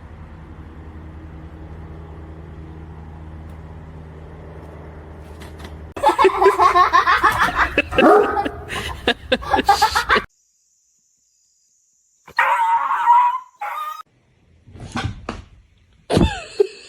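Steady low hum for about six seconds, then a dog barking and yipping in a rapid run for about four seconds. After a short silence come shorter dog cries.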